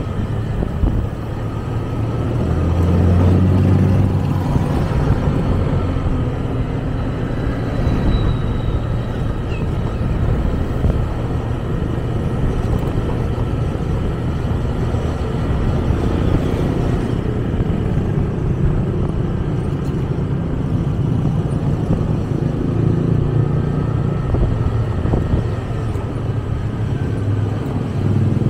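Steady running noise of a road vehicle on the move, engine and road noise together, swelling briefly about three seconds in.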